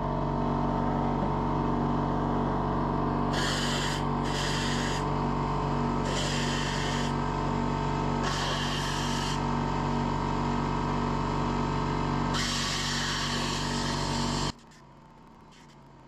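Compressed-air blow gun hissing in about five short blasts, clearing crud out of the head-bolt holes of a diesel engine block so the bolts won't crack the block when tightened. Under it a steady mechanical hum runs and stops suddenly near the end.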